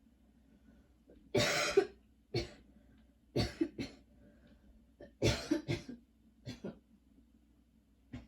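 A woman coughing in short fits of two or three coughs, about ten in all, the longest and loudest about a second and a half in. Coughing spells driven by a lingering tickle in the throat.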